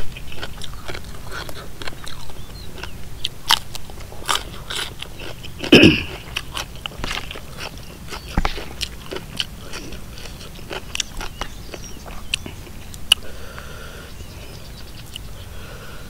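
Close-up chewing and crunching of a mouthful of raw winged bean with papaya salad: a run of crisp crunches and wet mouth clicks, with a brief hum from the eater about six seconds in.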